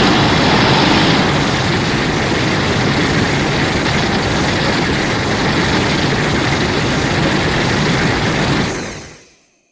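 Designed kaiju sound effect for a mushroom-cloud Godzilla: a loud, dense rumble of noise with no clear pitch, holding steady and then fading out to silence about nine seconds in.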